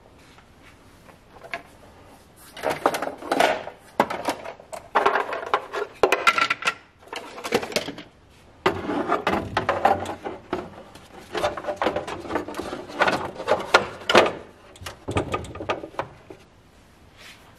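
Irregular bursts of scraping and rubbing, broken by clicks and knocks, from hands working on small hard parts.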